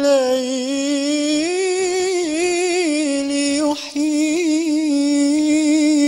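A young male voice singing a cappella in the Arabic religious inshad style: a long ornamented melisma on held notes with vibrato, with a brief breath about four seconds in.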